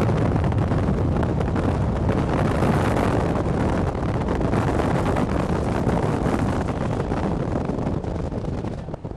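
Strong wind rushing and buffeting against the microphone at the open window of a moving car. The noise is loud and steady and eases a little near the end.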